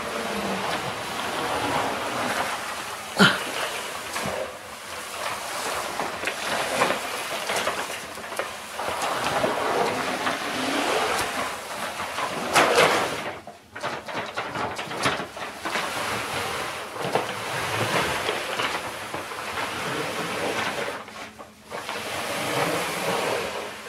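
Brown paper bag carrying a cat being dragged over a rug, a rough scraping rustle of paper that comes and goes with the pulls, with a few sharper crackles of the bag, the loudest about three seconds in and about twelve seconds in.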